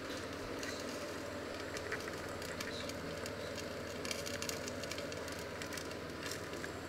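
Water boiling in a pot under a perforated steamer insert: a steady bubbling hiss scattered with small pops and crackles, over a low hum.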